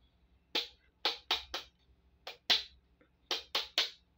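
Sharp, irregular clicks and taps, about ten in four seconds, from a hand-wound coil on a wooden bobbin being handled.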